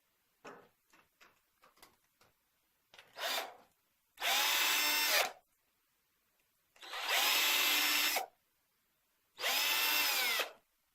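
A small power screwdriver or drill driver runs in three short bursts, each winding up and down, as it backs out the screws holding the RC truck's stock front brace, after a few light clicks of handling the screws and parts.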